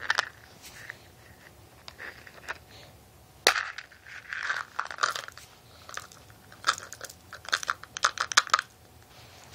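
Small hard sour mints clicking and rattling together as they are handled, with short rustles, a sharp knock about three and a half seconds in and a quick run of clicks near the end.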